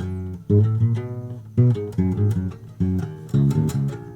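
A twelve-string guitar converted into a bass and strung with guitar strings, plucked with the thumb in a quick bass line of low notes, several a second, each with a sharp attack.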